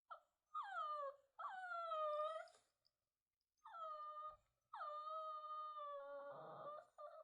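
Puppy crying: a run of about five whining wails, each starting high and dropping before holding steady, the longest lasting about two seconds and turning rough and strained near the end.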